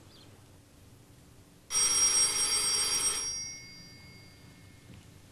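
Telephone bell ringing once with a ring of about a second and a half, starting nearly two seconds in, its tone dying away after it stops.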